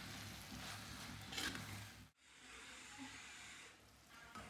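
Spoon stirring sliced onions, tomatoes and green chillies in a clay pot, with a faint sizzle and a few short scrapes. About two seconds in the sound drops off sharply and gives way to a fainter steady hiss from the steaming pot as its lid is lifted.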